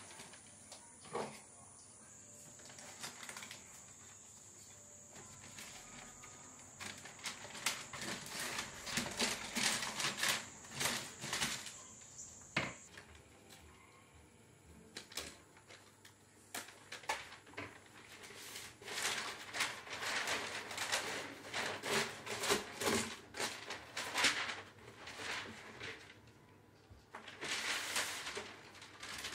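Thin wrapping paper rustling and crinkling in irregular crisp crackles as it is pulled off a roll of coloured paper by hand, with a few quieter pauses.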